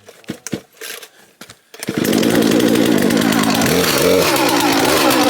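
Old two-stroke Poulan chainsaw being pull-started after sitting three years with old fuel in it: a few short sounds of the starter pull, then the engine catches about two seconds in and runs loudly.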